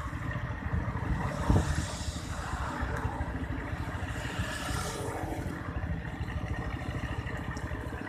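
Walk-behind hand tractor's single-cylinder diesel engine chugging steadily under load as it ploughs a flooded rice paddy.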